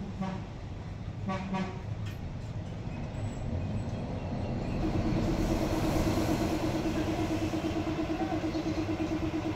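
A small motor starts about halfway through and runs with a steady hum and a fast, even pulse, with a hiss rising alongside it as it starts. Before that there is only a low background rumble.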